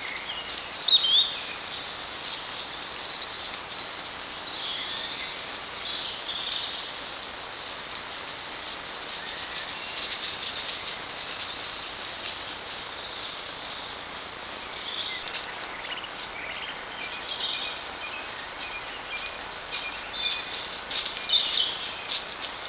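Woodland birds chirping and calling over a steady hiss from a trail camera's microphone, with the loudest calls about a second in and again near the end.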